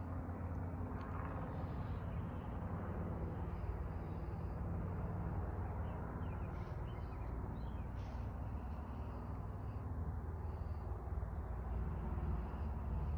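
Steady low outdoor rumble of background noise, with a few faint high chirps about halfway through.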